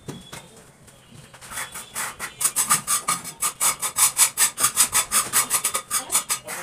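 A cloth rubbed briskly back and forth over the surface of a plastic (PVC) bathroom door, wiping it clean. It makes a rasping swish, about five strokes a second, starting a second and a half in and stopping near the end.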